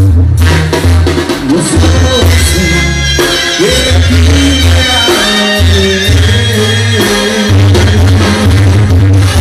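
Mexican banda playing live and loud: a brass section of trumpets and trombones and percussion over a deep, pulsing bass line, with a singer's voice.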